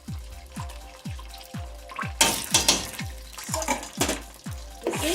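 Tomato paste sizzling and spattering in hot oil in a pot. The sizzle breaks in loudly about two seconds in, eases, and settles into a steady frying hiss near the end. Background music with a steady thudding beat runs underneath.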